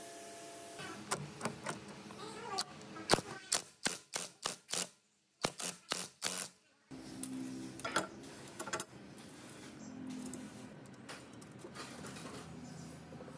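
Sharp metal clicks and clinks as a steel angle-bracket tool rest and its bolt are fitted to a bench grinder. Later comes a low hum in short spells from a power driver turning a socket on the bolt, with a few more clicks.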